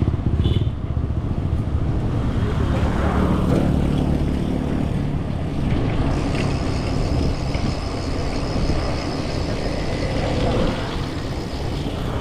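Wind buffeting an action camera's microphone during a bicycle ride on a road: a steady, heavy low rumble with road and vehicle noise underneath.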